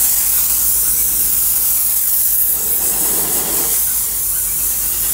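High-pressure water spraying from the gun of a Harbor Freight paint sprayer used as a rinser, a steady hiss as it washes down a painted truck door panel.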